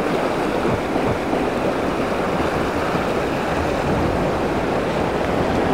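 Steady rush of ocean surf surging and washing against shore rocks.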